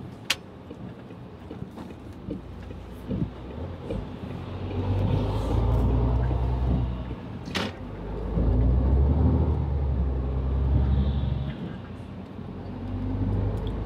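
Mercedes-Benz Actros truck's diesel engine heard from inside the cab, pulling away and accelerating at a green light. The low rumble builds about four seconds in, eases off twice (once with a short click) and builds again each time.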